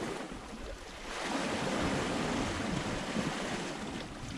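Sea washing against a rocky shore with wind buffeting the microphone: a steady rushing noise, a little quieter for the first second.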